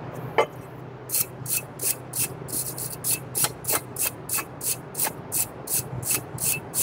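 A stiff brush scrubbing a brake part, about three quick rasping strokes a second, after a single metal knock about half a second in.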